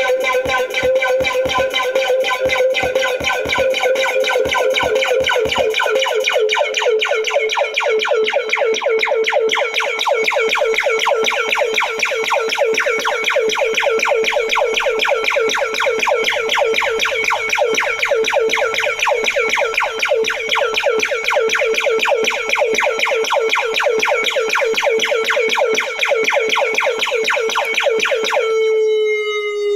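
Electronic music played live on hardware synthesizers: a held, buzzy synth note chopped into rapid even pulses over a low drum beat, and the beat drops out about six seconds in. Near the end the pulsing stops and the held note slowly slides down in pitch like a siren.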